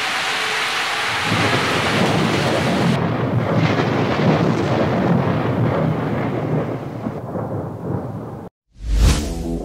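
Hailstorm: a steady, heavy rush of falling hail and rain with a low rumble underneath. It cuts off abruptly near the end, and music starts with a hit.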